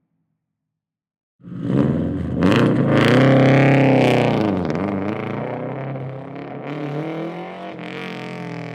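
Car engine sound effect: after about a second and a half of silence it starts loud and keeps running, its pitch dipping and rising again, with a few sharp higher noises mixed in.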